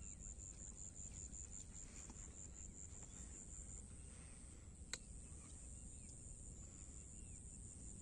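Faint insects singing outdoors: a steady high buzz with a rapid pulsed chirp of about five a second that stops about four seconds in. Faint bird chirps and a single sharp click near five seconds in.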